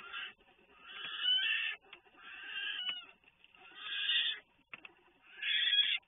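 Newborn black bear cubs crying in the den: four short, high-pitched bleating cries, each under a second, with brief pauses between them.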